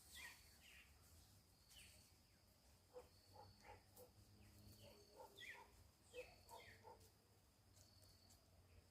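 Faint evening bird chorus in forest: several birds giving short descending chirps and repeated lower short notes, with a thin steady high note coming and going.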